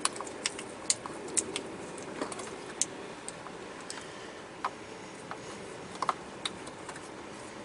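Irregular small clicks and ticks of a wiring harness and plastic console parts being handled and tucked into place around a wireless charging module.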